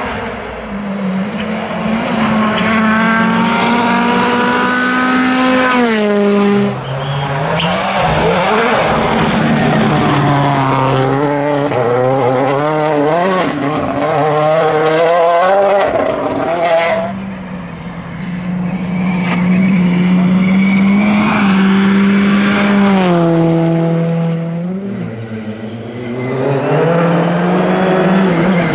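Rally cars at speed, their engines revving hard and shifting up through the gears, with the pitch dropping in steps on downshifts and brief dips as the throttle lifts for corners. Three such dips; the revs climb again near the end as a car approaches.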